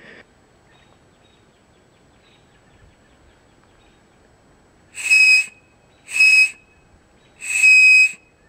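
Three loud, high-pitched blasts on a homemade whistle cut from a bush honeysuckle (Lonicera tatarica) branch, which uses the stem's natural hollow chamber. Each blast is a steady tone with plenty of breath noise. They start about five seconds in, and the third is the longest.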